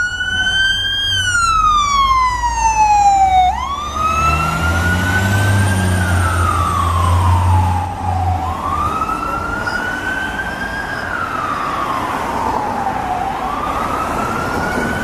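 Fire engine's siren wailing, each cycle climbing quickly and falling away slowly about every four to five seconds. The truck's engine adds a low rumble that swells for a few seconds in the middle as it pulls away.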